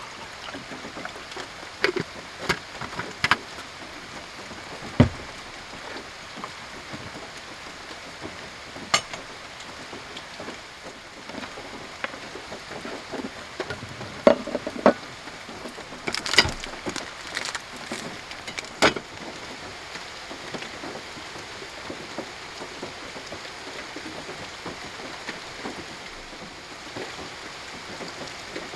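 Steady patter of light rain, with occasional clinks and knocks of metal camp cookware being handled on a wooden table, mostly in the first two-thirds.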